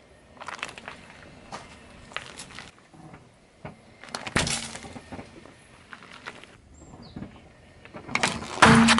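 A car tyre rolls slowly over a ketchup sachet on asphalt, with grit crackling under the tread; the sachet bursts with a sharp pop about four seconds in. Near the end comes the loudest crunch, as the tyre crushes a blue light-bulb-shaped object.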